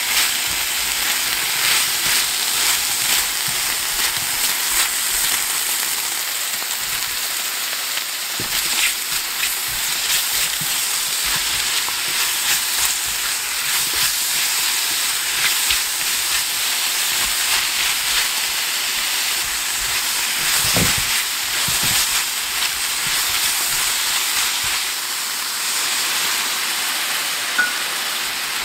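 Zucchini and shrimp sizzling in garlic butter in a stainless steel frying pan, a steady frying hiss, with scattered light clicks as a spatula stirs them.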